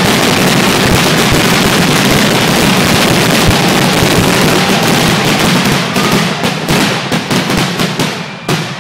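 Fireworks finale: a dense, continuous barrage of shell bursts and crackle that thins out to a few separate bangs near the end.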